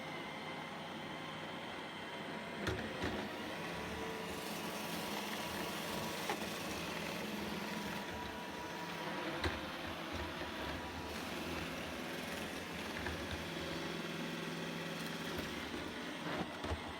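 iRobot Roomba i3+ robot vacuum running: a steady motor hum and hiss from its suction and brushes, with a few short knocks along the way.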